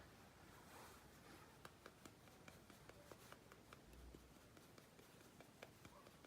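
Faint, light clicks and taps of tiny toy kitchen pieces being handled and set in place, a string of small irregular clicks.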